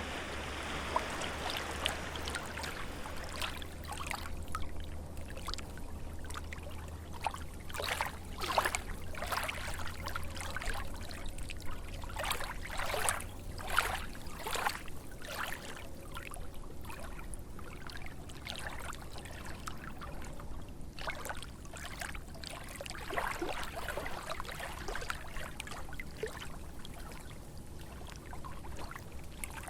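Small lake waves lapping and splashing against the shore in irregular little slaps, over a low steady rumble that fades about halfway through.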